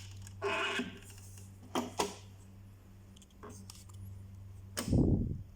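Hands and tools working on a small plastic speaker monitor as it is taken apart: a brief scraping rattle, a few sharp clicks, then a loud low thump near the end, over a steady low hum.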